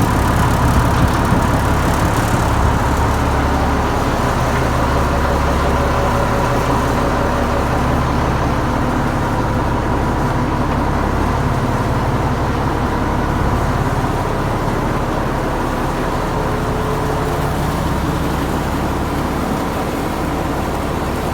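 A motor or engine running steadily, with a deep rumble and a constant whine, the way a feed-pellet machine sounds in operation.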